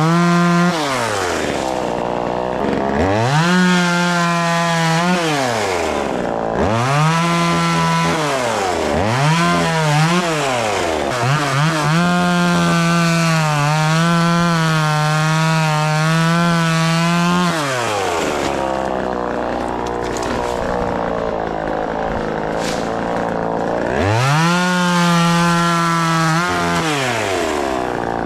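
Small 25cc two-stroke gas chainsaw (Vevor 12-inch) cutting wood, its engine revved again and again to full throttle and let fall back. It holds full throttle for about six seconds in the middle, drops to a lower run for several seconds, then revs up again near the end.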